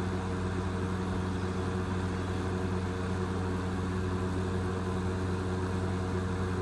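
Patton PUH680 electric milkhouse heater running, its fan motor giving a steady low hum under an even rush of blown air.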